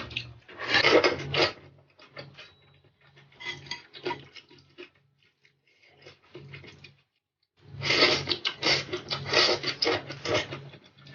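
Close-miked eating sounds: moist, crackly chewing of fried rice noodles in bursts, quieter for a couple of seconds in the middle.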